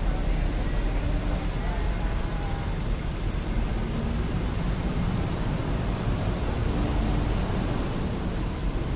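Steady low rumble of a bus engine as a medium-size city bus drives slowly past.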